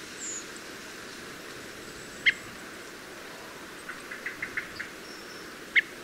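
Redwing flight calls: thin, high-pitched, down-slurred notes, one about two seconds in and another near the end, with a few fainter short notes in between, over a steady hiss. This is the call redwings give while migrating overhead at night.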